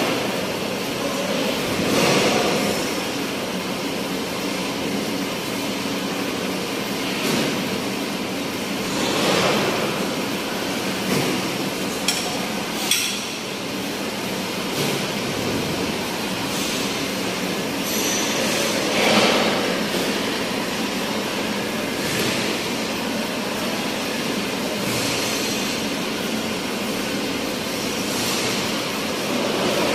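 Steady slaughterhouse din, a continuous mechanical noise that swells every few seconds, with a few sharp metallic clinks.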